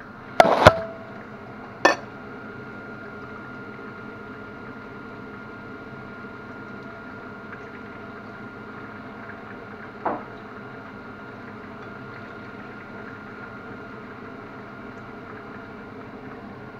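Knocks as the camera is handled and set down on the counter, then a steady hiss with a faint steady high whine, and one more knock about ten seconds in.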